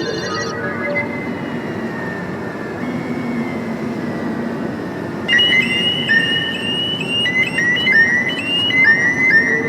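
FM radio static hiss with faint wavering tones. From about five seconds in, a rapid run of short, high electronic tones hops between pitches like beeping or chirping.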